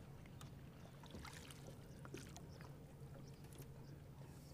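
Near silence: a faint steady low hum with a few faint scattered ticks.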